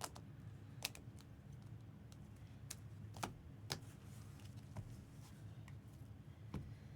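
Six or so sharp, separate clicks and taps, spaced irregularly, over a low steady hum.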